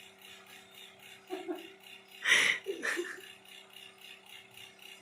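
A few short vocal sounds and one sharp, breathy burst about two seconds in, over a faint steady hum.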